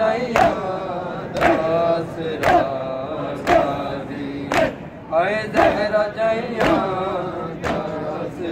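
Men's voices chanting a Punjabi noha, a Shia lament, with a sharp hand strike of matam (chest-beating) about once a second keeping the beat.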